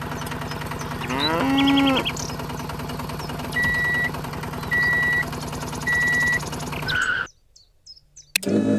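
A cow moos once, about a second in, over a steady low mechanical hum. Three short high beeps follow, evenly spaced. Near the end everything cuts off for about a second.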